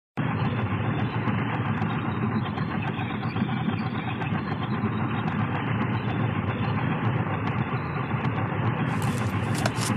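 Steady, heavy engine and running drone of a military vehicle heard from inside its troop compartment, with a few faint light clicks over it.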